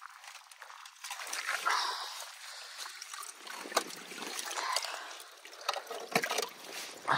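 Icy water in a metal stock tank sloshing, trickling and splashing as a gloved hand breaks and lifts out slabs of surface ice, with a few sharp knocks of ice.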